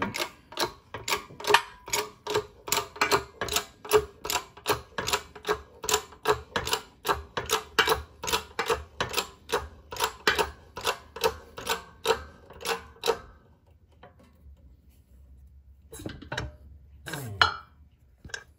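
Hydraulic shop press being pumped to drive a crankshaft bearing sleeve into a Can-Am Gen 1 Rotax aluminium crankcase: a steady run of clicks, about three a second, that stops about thirteen seconds in. A few handling knocks and a short scrape follow near the end.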